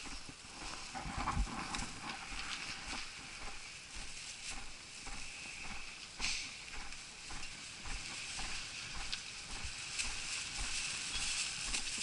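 Footsteps of a person walking on a paved street, a soft thump at each step about twice a second, over a steady faint hiss.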